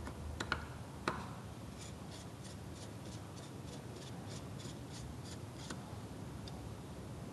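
Flat-blade screwdriver unscrewing the brush cap on an Ingersoll Rand ES60P electric screwdriver's housing: a few sharp clicks as the blade seats in the cap, then a regular run of faint small ticks, about three a second, as the cap is turned out.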